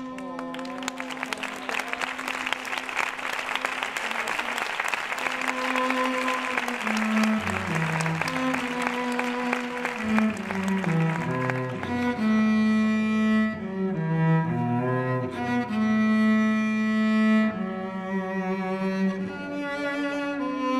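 Slow bowed-string music led by a low, cello-range line: a long held note, then a melody moving through long bowed notes. A dense crackling noise lies over the first half and dies away about twelve seconds in.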